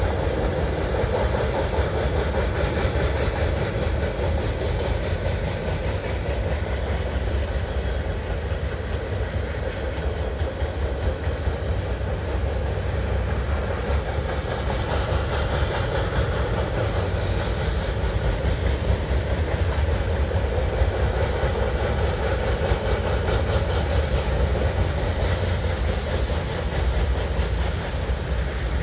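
Loaded freight flatcars rolling past, their steel wheels running steadily on the rails with a continuous rumble and rapid clicking.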